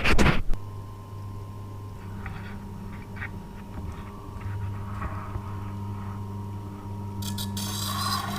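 A clunk, then the Tormek T8 sharpening machine's motor running with a steady low hum. About seven seconds in, a rough scraping starts: a knife blade on the turning wheel.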